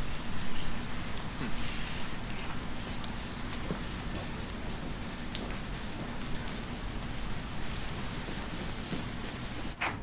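Steady rain falling, an even hiss sprinkled with scattered sharp drop clicks.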